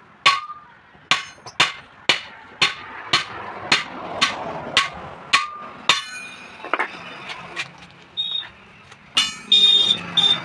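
Hammer blows on a truck tyre and its steel wheel rim, about two a second with a metallic ring, stopping about six seconds in. A few scattered knocks and short high metallic rings follow near the end.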